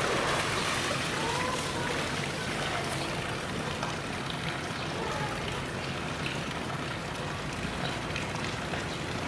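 Water splashing and streaming off a polar bear as it climbs out of a pool, loudest near the start, then a steady rush of running water.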